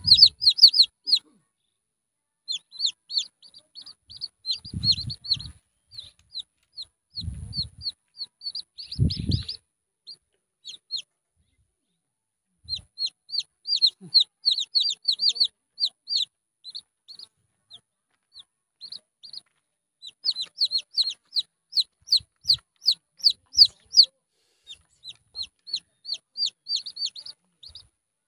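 Several junglefowl chicks peeping: quick runs of short, high calls that each slide downward, broken by a few short pauses. There are a few soft low thumps near the middle.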